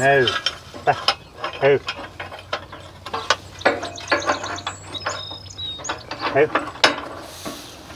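Irregular metallic clicks, clinks and rattles of chain and hitch hardware being worked by hand at the hitch between a horse-drawn forecart and a spring-tooth harrow.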